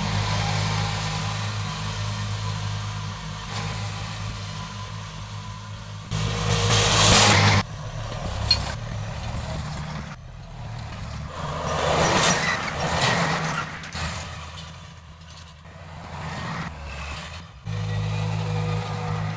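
A heavy vehicle engine running with a steady low hum, with louder rushing surges about six seconds in and again around twelve seconds in.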